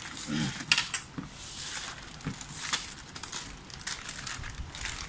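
Plastic zip bag crinkling and rustling as a coiled power cable is handled and pulled out of it among cardboard packing, with irregular crackles and sharp little clicks.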